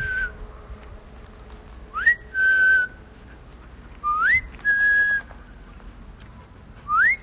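A person whistling to call dogs: each whistle is a quick note sliding upward, then a short held note. It is repeated three times, every two to three seconds.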